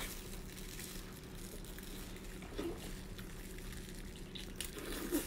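Wet mouth sounds of eating a whole cooked octopus in chili sauce: soft slurping and squishing as it is bitten and sucked, with a louder wet smack about two and a half seconds in and another near the end, over a steady low hum.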